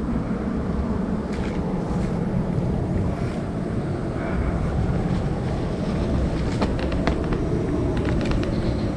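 Steady low wind rumble on the microphone, with a few light crackles near the end.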